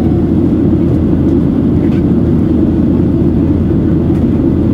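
Steady in-flight cabin noise of a Boeing 737-800, heard inside the cabin: a dense, low, even rush of airflow and its CFM56-7B engines.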